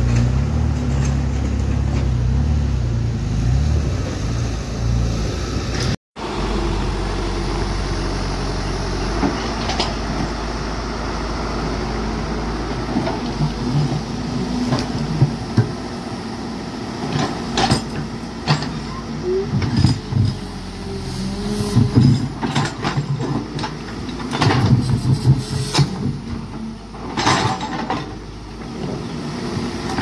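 A dump truck's diesel engine running steadily, then after a short break a tracked excavator's diesel engine running while its bucket digs into soil, with a series of sharp knocks and clanks in the second half.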